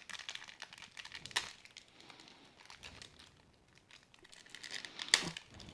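Toy packaging being pulled open by hand: crinkling and crackling, with a sharp crack about a second and a half in and a louder one near the end.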